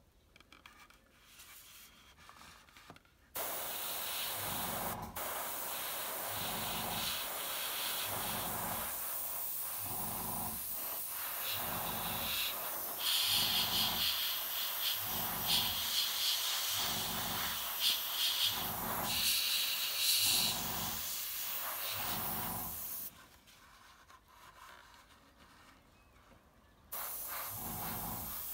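Airbrush spraying paint: a steady hiss of air, with a low pulse about once a second underneath and several louder bursts of spray in the middle. It stops for a few seconds near the end, then starts again.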